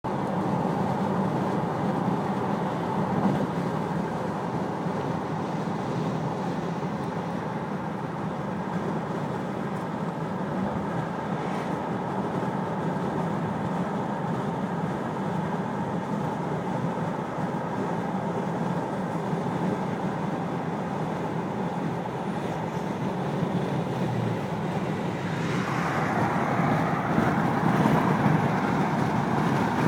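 Steady vehicle running noise that grows a little louder over the last few seconds, with a brief falling sweep about 25 seconds in.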